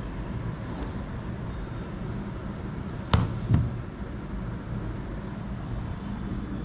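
Steady low background rumble, with two sharp knocks about half a second apart a little over three seconds in, from the power bank's box being handled during unboxing.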